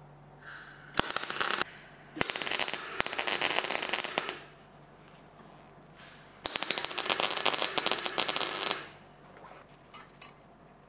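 MIG welder arc crackling in three bursts: a short one about a second in, then two of about two seconds each, as short welds join thin steel rods.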